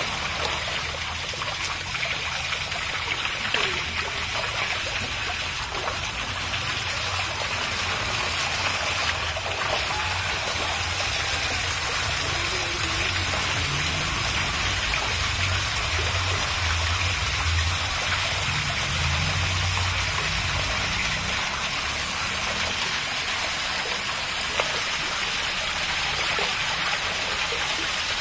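Water running steadily over a tiled floor in a shallow sheet, a continuous rushing splash.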